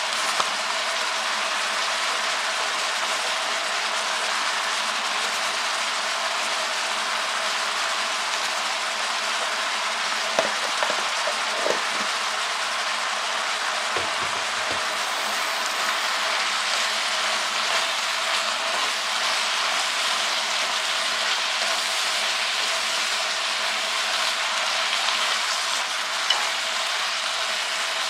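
Wild mustard greens frying in an electric hot pot, sizzling steadily, with a few light clicks.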